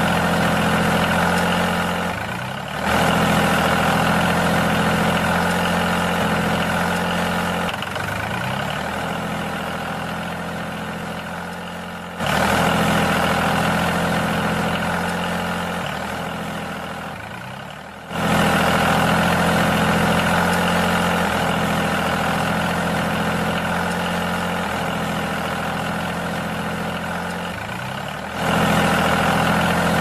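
A tractor engine running steadily at idle. Four times, its sound jumps up sharply and then eases down.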